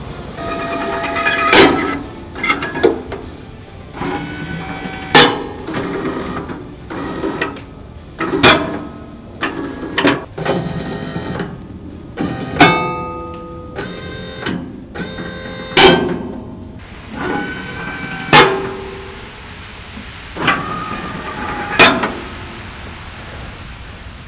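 Background music with plucked guitar-like notes and sharp accent hits every two to three seconds.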